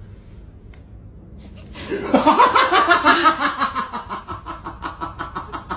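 A person laughing hard, starting about two seconds in, in rapid pulses that gradually die down.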